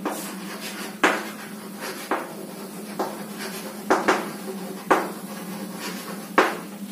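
Chalk writing on a chalkboard: about seven sharp, irregularly spaced taps as the chalk strikes the board, with faint scratching between them.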